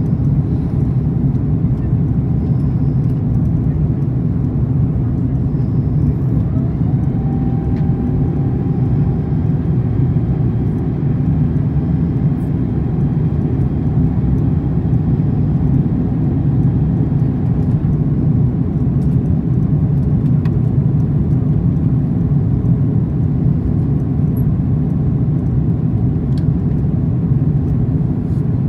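Steady cabin noise inside an Airbus A340-300 on approach with flaps extended: the low, even rush of air over the airframe and the hum of its four CFM56 engines. A faint whine rises about a quarter of the way in and holds a steady pitch for about ten seconds.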